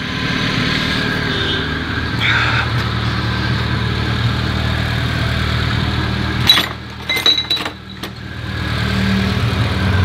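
Car engine running, its accessory belt driving the water pump and power-steering pump, with a steady noise from the water pump's worn pulley. A few knocks and a brief drop in level come about two-thirds of the way through.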